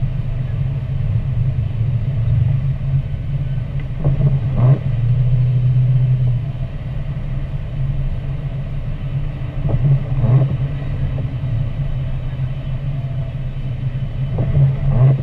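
Car driving on a wet mountain highway, heard from inside the cabin: a steady low engine and road drone. Three brief wiper sweeps across the rain-wet windshield come about five seconds apart.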